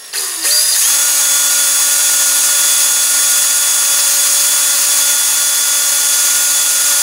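Ryobi cordless drill drilling a small pressure relief hole through a cardboard rocket body tube. The motor speeds up in the first second, then runs at a steady whine throughout.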